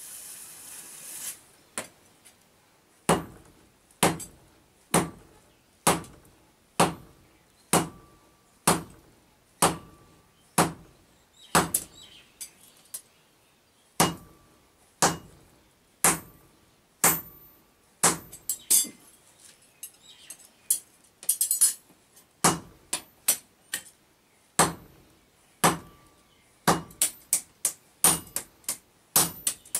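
Hammer blows on a red-hot steel axe head on an iron anvil block, about one strike a second, each with a short metallic ring. Later the strikes come quicker, two or three a second.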